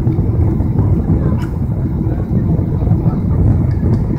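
Steady low rumble of a Boeing 777's engines and airflow heard inside the passenger cabin on approach with flaps extended. A brief click comes about a second and a half in.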